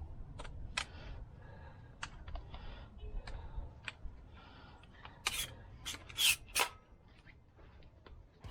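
Finish nails being driven to tack wooden fence slats in place: a series of sharp knocks and clicks, with five loud ones in quick succession about two-thirds of the way through, and lighter taps and handling of the boards in between.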